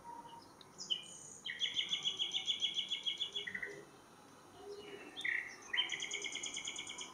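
A bird singing: two fast trills of repeated high notes, about two seconds and one second long, with a few short chirps between them.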